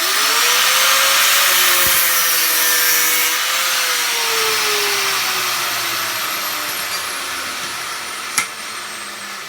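Electric power tool starting up abruptly and cutting through brass scrap: a loud hissing cut over a motor whine that rises as it spins up, then slowly sinks as it bogs under load. A sharp tick comes near the end.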